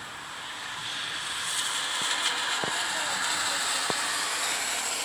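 Heavy rain hissing during a cold-front thunderstorm, swelling louder about a second in, with a few drips ticking.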